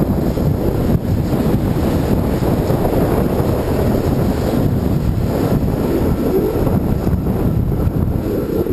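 Wind buffeting the microphone of a camera on a moving bicycle: a steady, loud, low rumble.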